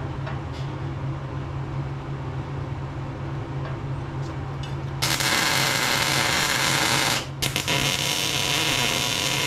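Electric arc welding a bracket onto a steel air-compressor tank. A steady crackling hiss starts suddenly about halfway through, stops briefly, then starts again for a second bead. A steady low hum runs underneath throughout.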